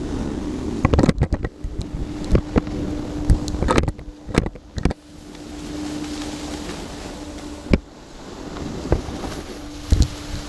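Snowboard sliding over groomed snow, with wind rushing over the microphone of a pole-held action camera, scattered sharp knocks and clicks, and a faint steady hum underneath.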